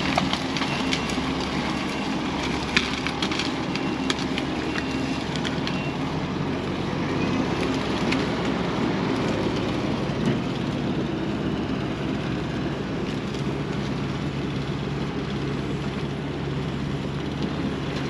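Diesel engine of a compact track loader running steadily under load while its grapple grabs and shoves felled trees, with wood cracking and splintering in a few sharp snaps, the loudest about three seconds in.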